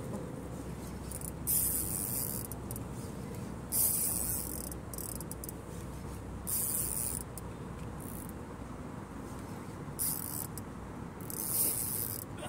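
Spinning fishing reel buzzing in five short bursts, each under a second, as a hooked fish is played on a bent rod, over a steady low background.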